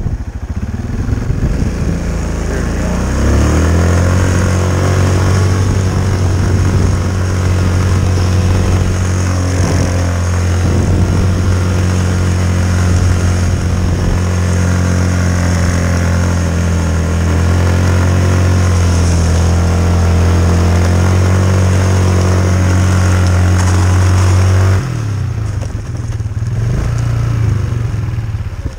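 Yamaha Kodiak 450 ATV engine revving up about three seconds in and held at steady revs for some twenty seconds, then dropping off suddenly near the end.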